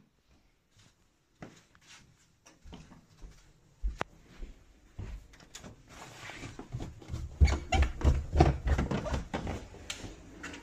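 Footsteps going down a carpeted staircase, with scattered knocks and bumps at first and then a quick run of heavy steps about two-thirds of the way in.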